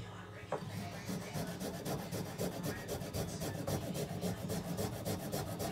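Fresh ginger being grated on a handheld rasp grater: rapid, rhythmic scraping strokes of the fibrous root across the fine metal teeth.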